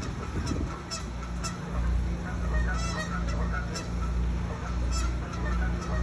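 Birds giving short repeated calls, with a few sharp flaps or clicks, over a low pulsing rumble that starts about two seconds in.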